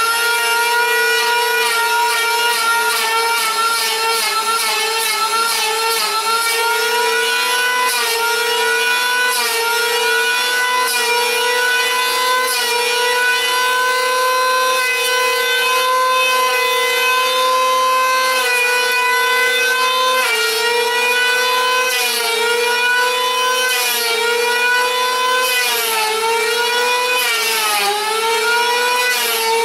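Corded electric hand planer running with a steady high whine, its pitch dipping briefly several times as the blades bite into a block of wood. The motor starts to wind down right at the end.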